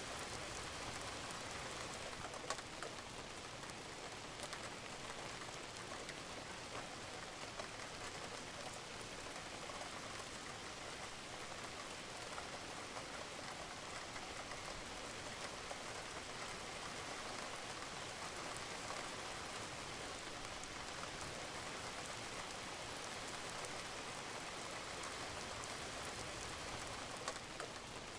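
Steady rain falling on a roof, with individual drops ticking through the even hiss of the rain. One sharper drop lands about two and a half seconds in.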